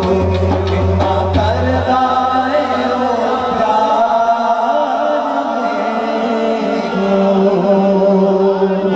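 Male voices chanting an Urdu naat into microphones, in long drawn-out melodic notes. A low steady hum sits under the voices for the first two seconds, then drops away.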